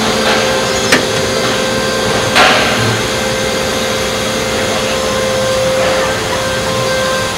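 Factory-floor machinery running around fenced robot cells: a loud steady hum with a constant tone, a sharp clack about a second in, and a short hissing burst a little after two seconds.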